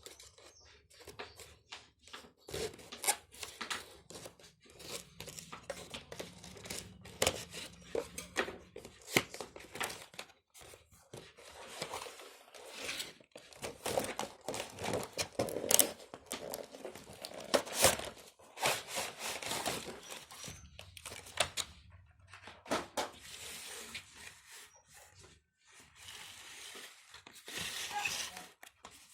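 Toy packaging being unboxed by hand: tearing and crinkling, with many sharp clicks and thunks coming and going.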